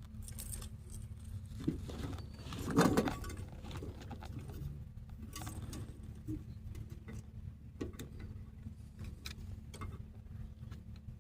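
Small metal parts and hand tools being handled: scattered light clicks and rattles over a steady low hum, with one louder scraping rattle about three seconds in.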